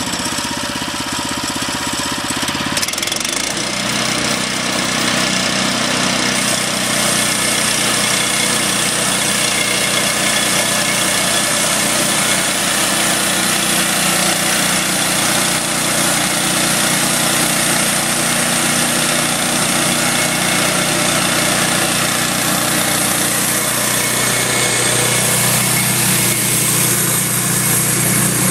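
Gasoline engine of a portable band sawmill, just started, running steadily; its pitch changes about three seconds in, then it runs on under load as the band blade saws through an oak log.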